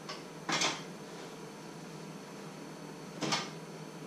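Two brief clatters of objects being handled on a wooden worktable, about half a second and three seconds apart, over a steady low electrical hum.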